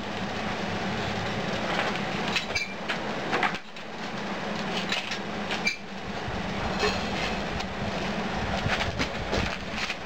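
Propane-fired melting furnace burner running with a steady rushing noise over a low hum, with a few short metallic clinks as tongs work the crucible out.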